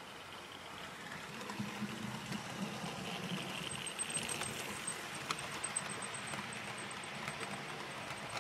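Model railway steam locomotive and coaches running past on a curve of track: the locomotive's electric motor whirring and the wheels rattling on the rails, building up about a second in and loudest through the middle, with scattered light clicks.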